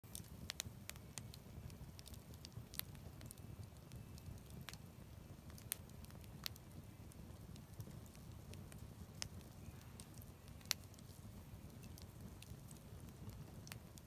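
Wood fire burning in a metal fire pit, crackling with irregular sharp pops and snaps, a few louder than the rest, over a low steady rumble.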